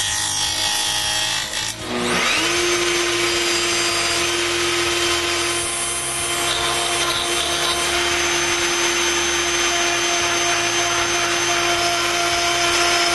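Electric router motor spinning up about two seconds in, then running at a steady high pitch, with the rushing noise of the bit working wood.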